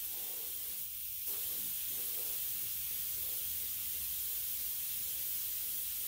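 Neiko 31207A HVLP mini gravity-feed spray gun hissing steadily as it sprays paint onto a car bumper, with a short break about a second in.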